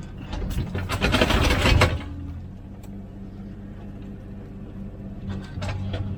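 Komatsu PC16 mini excavator's diesel engine running steadily, with a loud rough scraping burst of noise from about half a second to two seconds in as the machine works, and a few sharp knocks a little before the end.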